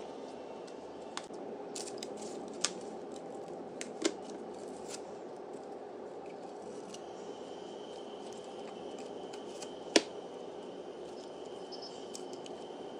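Hands handling taped cardboard packaging: scattered sharp clicks and taps as the cardboard sheets are pried apart and moved, the loudest a single snap about ten seconds in, over a steady background hum.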